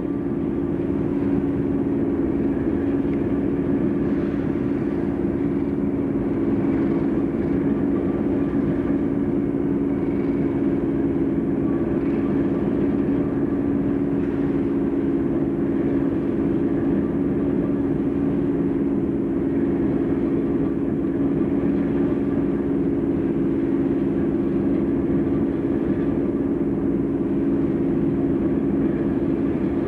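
Class 31 diesel locomotive's English Electric V12 engine running steadily as the locomotive moves slowly on its own without a train, a constant deep hum that neither rises nor falls.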